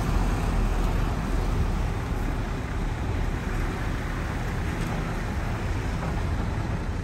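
Diesel engine of heavy earthmoving machinery running steadily, with a strong low hum under a broad noise.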